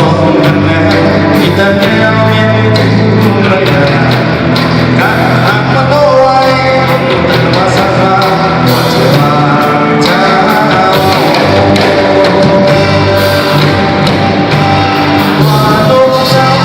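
A rock band playing loudly with a singer, with drum hits keeping a steady beat.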